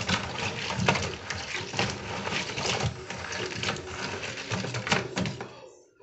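Raw crabs being scrubbed by hand in a plastic basin of water: their shells clatter and scrape against each other and the basin in a rapid, irregular run of clicks. The clatter stops shortly before the end.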